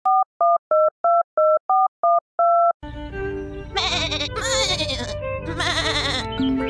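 Telephone keypad dialing tones: about nine short two-tone beeps in quick succession, the last held longer. Then background music starts, with high wavering cries over it.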